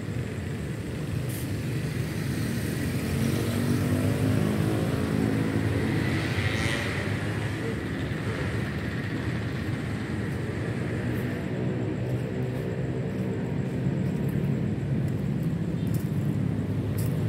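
Engine of a passing motor vehicle, its hum slowly rising and falling in pitch as it swells to its loudest about four to seven seconds in and eases off, then swells again near the end.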